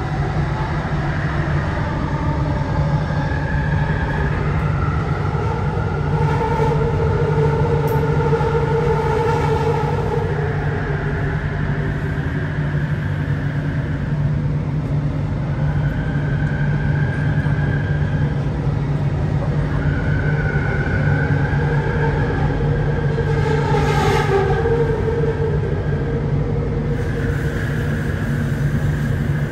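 Metro train running: a steady low rumble with tones from the motors and wheels that drift slowly up and down.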